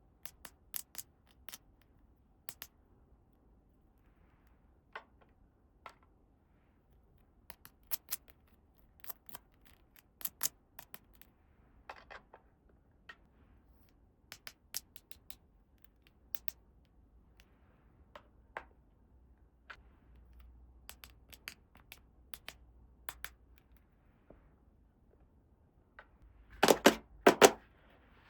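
Sharp clicks and taps of small toy pieces being handled and set down, coming irregularly, with a louder cluster of knocks near the end.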